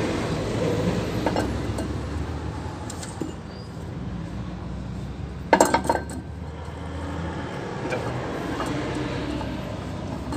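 Metal-on-metal clinks as a steel spur gear is handled and fitted onto its shaft in a rotavator's side gearbox, with a sharp cluster of clinks about halfway through, over a steady low rumble.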